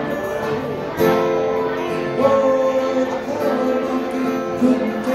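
Live acoustic bluegrass band playing, with fiddle, five-string banjo, acoustic guitar and dobro. There are held notes throughout, and a sliding note about two seconds in.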